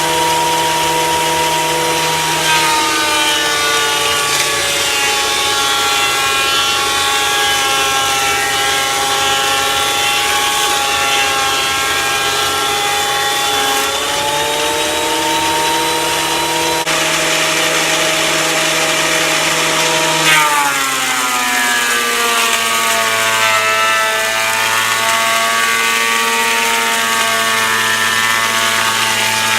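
Delta 22-540 benchtop thickness planer running while rough-cut ash boards are fed through. Its motor whine drops in pitch about two seconds in as a board takes the cutterhead's load, rises back about halfway through as the board clears, and drops again about two-thirds of the way in as the next cut starts.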